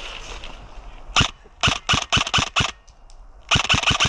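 Airsoft rifle firing rapid strings of sharp snapping shots, about five a second: one shot about a second in, a short string, a pause, then another string near the end.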